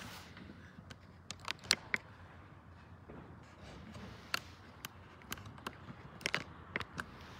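Irregular sharp clicks and taps of a finger handling the recording device close to its microphone, over a faint steady hiss; the clicks bunch up about a second and a half in and again near the end.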